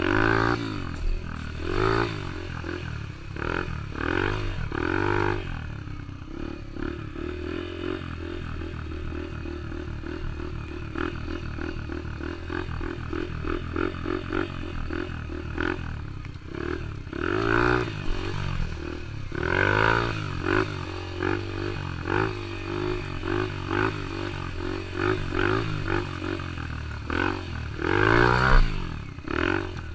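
Yamaha TT-R125 dirt bike's single-cylinder four-stroke engine being ridden, revving up and down over and over, its pitch rising and dropping with each burst of throttle, with a steadier stretch in the middle.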